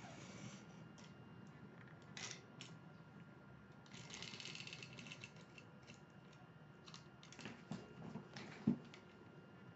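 Handling of a cardboard shipping box and its plastic wrapping: scattered faint rustles and clicks, a longer crinkling rustle about four seconds in, and one dull thump near the end.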